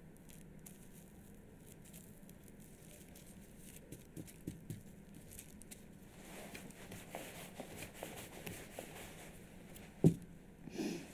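Quiet room with faint rustling and small handling noises, and one sharp knock about ten seconds in, followed by a short breathy sound.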